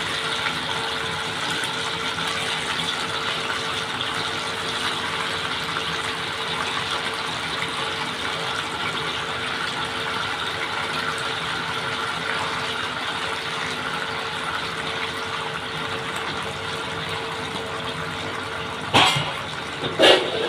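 Marinated chicken 65 pieces deep-frying in hot oil in a kadai, the oil sizzling and crackling steadily. Near the end come two sharp clatters about a second apart.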